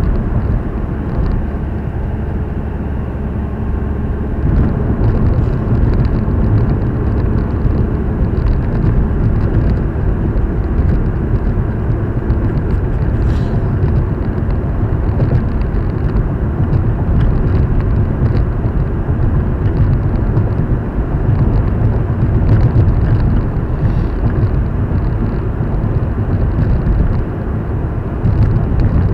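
Steady road and engine noise inside the cabin of a moving car, a low rumble that grows louder about four seconds in.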